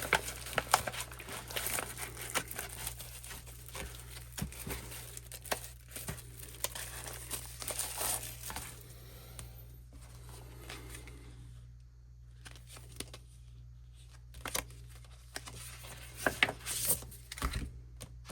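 K-pop album packaging crinkling and rustling as it is unwrapped and opened, with sharp clicks and taps of the contents being handled. It goes quieter for a few seconds past the middle, then the rustling and clicks pick up again near the end.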